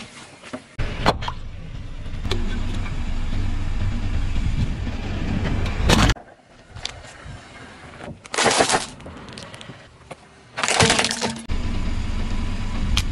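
Car tyre rolling slowly with a low rumble, broken by sharp cracks and breaking as objects are crushed under it. The rumble stops abruptly about six seconds in, two short crunching bursts follow, and the rumble returns near the end.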